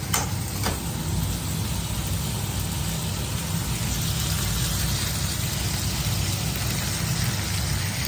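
Tomatoes, shallots, garlic and dry chilies frying in oil in a kadai, a steady sizzle over a low rumble, with the spatula scraping the pan twice in the first second.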